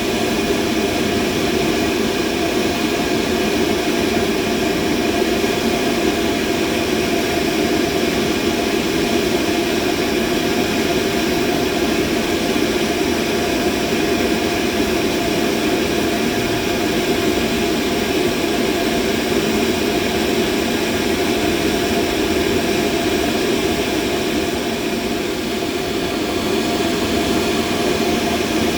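Machine running steadily: an even, unchanging hum of noise, strongest in the lower middle of the range, with a few faint steady tones above it.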